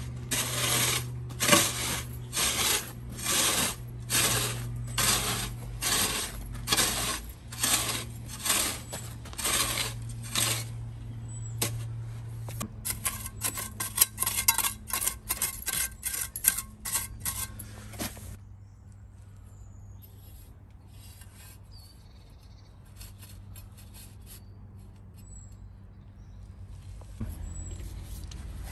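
A steel spade scraping stone dust back from a screed rail in regular strokes, about one and a half a second, for the first ten seconds. Then a small trowel scrapes the stone dust in quicker, finer strokes for several seconds before the sounds fade to a quieter stretch.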